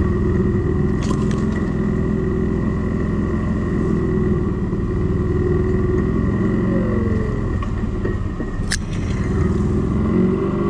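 CFMoto X8 ATV engine running steadily at low speed over rough ground, with a thin steady high whine above it. A single sharp click or knock comes near the end.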